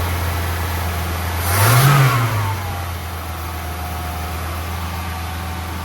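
1978 BMW E21 316's four-cylinder engine idling fast on choke after its first start in 32 years; it is revved briefly about a second and a half in, the pitch rising and falling, then settles back to a steady idle.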